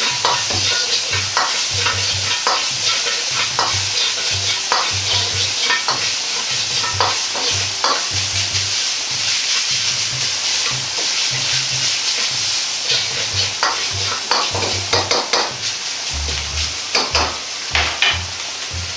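Ground pork sizzling in hot oil in an iron wok while a metal wok ladle stirs and scrapes it, the ladle clacking against the wok again and again over a steady frying hiss. The pork is being fried until it has fully changed colour.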